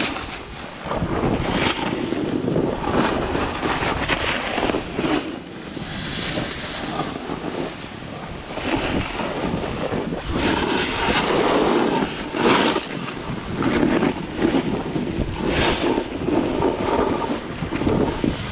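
Wind buffeting the microphone over the hiss and scrape of skis turning through snow, swelling with each turn.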